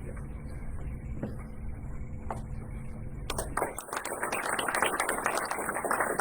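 A low, steady room rumble, then about three seconds in an audience breaks into applause, many hands clapping fast and dense.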